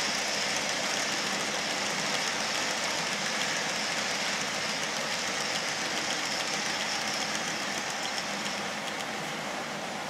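Steady rolling rumble of a long rake of Märklin H0 hopper wagons running on Märklin M-track, with metal wheels on stamped metal rail. It eases a little near the end.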